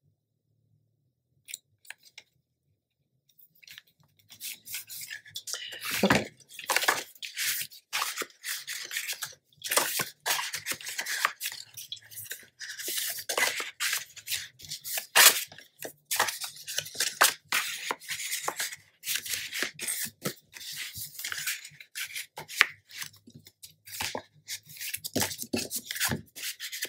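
Paper and chipboard tags being handled on a cutting mat: rustling, sliding and quick light taps as the tags are set into card pockets and pressed down. It starts about four seconds in, after near silence.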